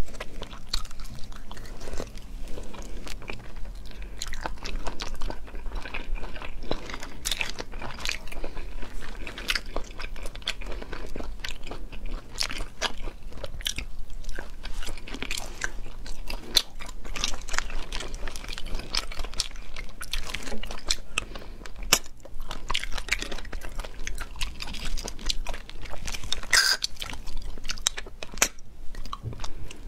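A person eating sea snails, sucking the meat from the shells and chewing, with many quick wet clicks and smacks.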